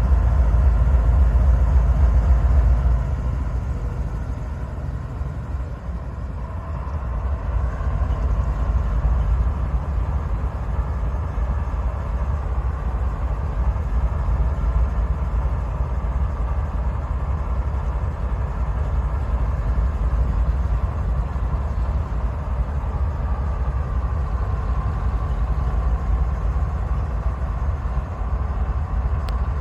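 GE ES44AC diesel-electric locomotive running after start-up: a heavy low engine rumble that eases off about three seconds in, then comes back up and holds steady.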